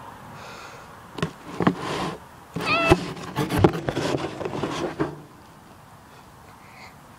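A short wavering meow from a cat, about three seconds in, among a run of knocks, clicks and rustling that stops about five seconds in.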